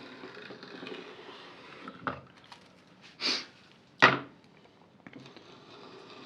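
Hand-tool work on a wooden piece: a knock about two seconds in, a short scraping stroke of a blade on wood, then a sharp wooden knock, the loudest sound, with a brief ring.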